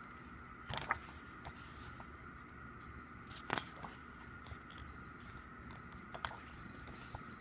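Glossy pages of a photo book being turned by hand: three short paper rustles, about a second in, midway and near the end, over a faint steady background hum.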